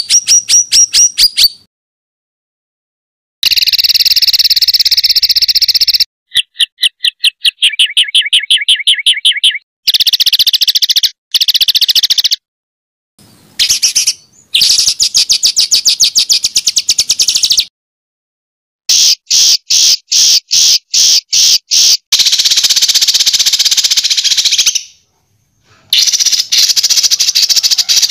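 Songbird 'tembakan' calls: rapid-fire runs of sharp, high-pitched repeated notes and trills, in loud bursts of one to four seconds that start and stop abruptly between dead-silent gaps, as edited into a bird-song tutor recording.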